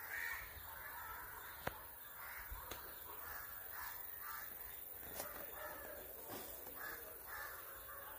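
Crows cawing repeatedly, faint, with a few sharp clicks; the loudest click comes about a second and a half in.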